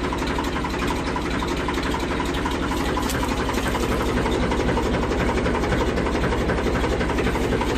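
Tractor engine running steadily with an even, fast pulse, revving up slightly a couple of seconds in.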